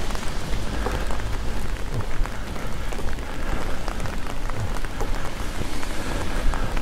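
Outdoor street noise: a steady hiss scattered with many small, irregular ticks and taps, like light patter or footfalls on pavement.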